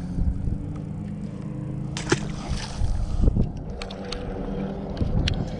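A boat motor running with a steady low hum that fades after the first couple of seconds, over water and wind noise. A few sharp knocks come about two and three seconds in.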